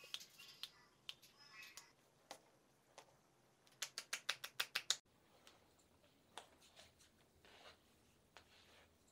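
Massage on bare skin: hands rubbing and patting, with a fast run of about nine sharp slaps in the middle, then softer rubbing strokes with an odd single tap.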